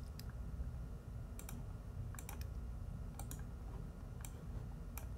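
Computer keyboard and mouse clicking: about a dozen short, sharp clicks at irregular intervals, several in quick pairs, over a faint low hum.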